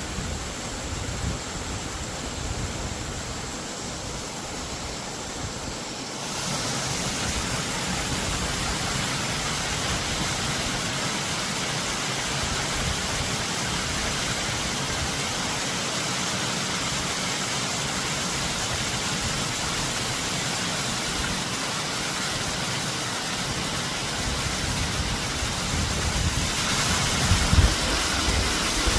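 High wind rushing steadily, stepping up louder about six seconds in, with stronger gusts buffeting the microphone near the end.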